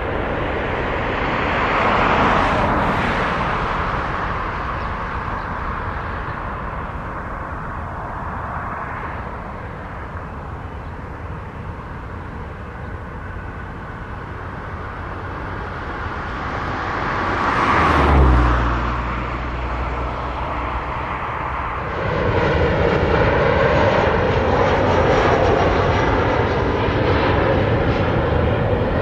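Twin-engine jet airliners landing and approaching: the engine noise swells to a peak about two seconds in and again, with a deep hum, about eighteen seconds in, then changes suddenly to a louder, steady engine sound with a high whine from about twenty-two seconds.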